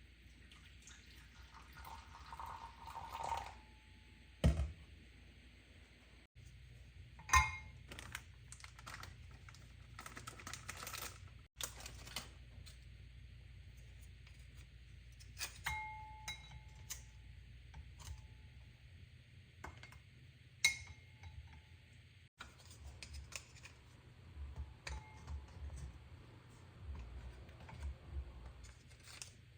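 Scattered light clicks, taps and a few brief clinks of small hard objects being handled, over a low steady hum.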